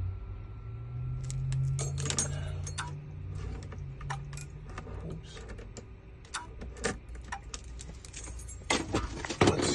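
Car keys clinking and small metal clicks as a key is handled, the clicks bunching up near the end, over a low steady hum.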